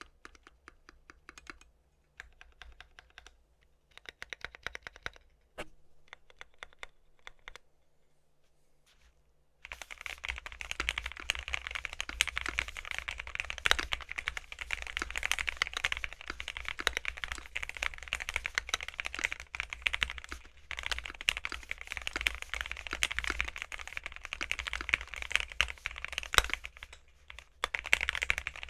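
Fully foamed Keychron Q3 mechanical keyboard with hand-lubed AKKO CS Crystal V3 switches, a POM plate and clear crystal keycaps being typed on, giving a bubbly keystroke sound. Short scattered bursts of keystrokes come first, then from about ten seconds in there is fast, continuous typing.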